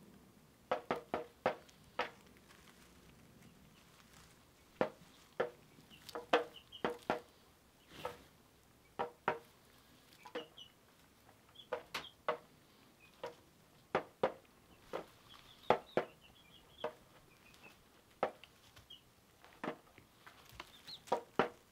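A young chicken pecking at the head of a small round toy drum with its beak: irregular sharp taps, some single and some in quick runs of two to four, with short high cheeps now and then.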